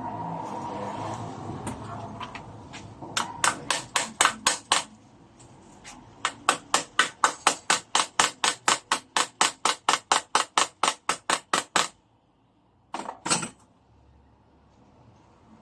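Hammer blows in quick, even runs: a short burst of about seven strikes, then a longer run of about five a second that stops abruptly, followed by a couple of separate knocks near the end.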